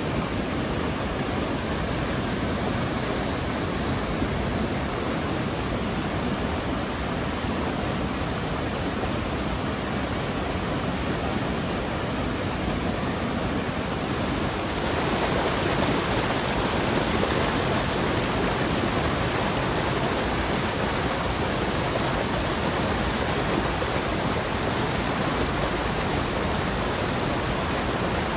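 Mountain stream rushing over rocks and small waterfalls: a steady rush of water that grows a little louder about halfway through.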